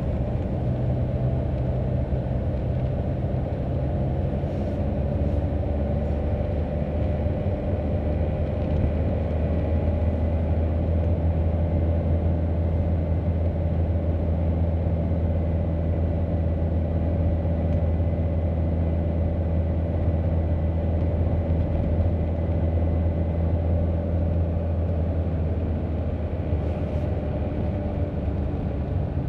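Car driving slowly, heard from inside the cabin: a steady low rumble of engine and tyres that holds even throughout.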